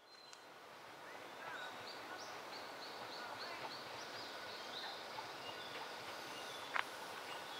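Forest ambience fading in: songbirds calling, one singing a run of short, high, repeated notes, over a steady faint hiss, with a single sharp click near the end.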